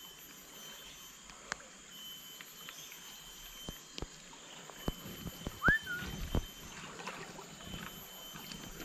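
Hands threading a grub bait onto a fishing hook close to the microphone: small scattered clicks, knocks and handling bumps, with a faint steady insect drone. A single short rising chirp sounds a little past halfway.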